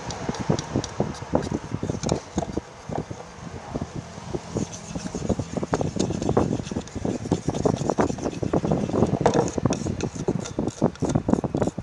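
A utensil stirring a mixture of glue and ink in a container, knocking and scraping against its sides in a fast, irregular run of clicks.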